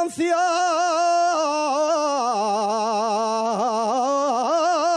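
A man singing an Asturian tonada unaccompanied: one long held, heavily ornamented note-line with wavering trills, the pitch stepping down a little before halfway and holding low to the end.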